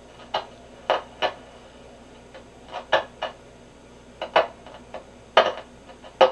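A Grunow 1191 vacuum-tube radio's loudspeaker giving short bursts of static at irregular intervals over a low hiss as the tuning knob is turned. The bursts mark where stations should be, but no program comes through, a fault the restorer thinks could be in one of the IF stages or the detector.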